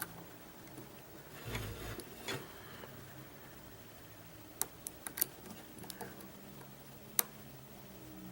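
Lock picks clicking and scraping in a Mul-T-Lock Interactive pin-tumbler cylinder as it is picked: a soft scraping rustle a second or two in, then a few sharp separate clicks later on.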